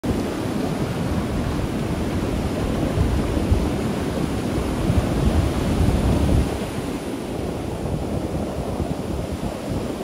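Ocean surf breaking and foam washing up the beach, with wind buffeting the microphone in low gusts that are strongest from about three to six seconds in, then ease a little.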